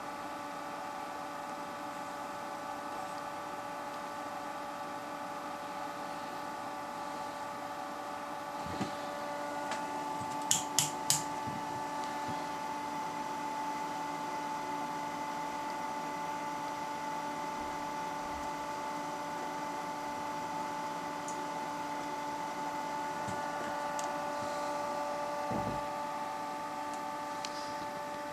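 Steady electrical hum made of several tones at once, with three sharp clicks in quick succession about ten seconds in and a few soft knocks.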